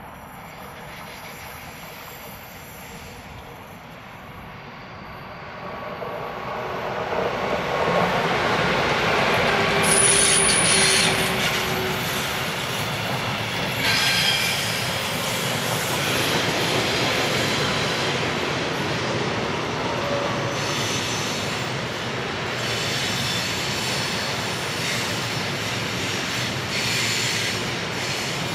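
Electric-hauled intermodal freight train (Lokomotion E193 Vectron with an RTC E189) approaching and passing. It grows louder from about six seconds in, the locomotives pass loudest between about eight and fourteen seconds, and then the trailer-carrying wagons roll by with high wheel squeal on the curve.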